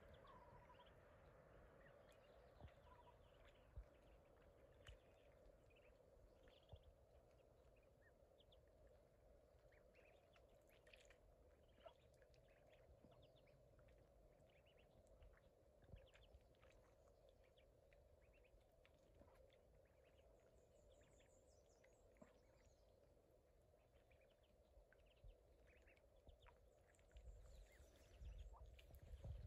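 Near quiet, with faint scattered peeping of ducklings over a steady low hum.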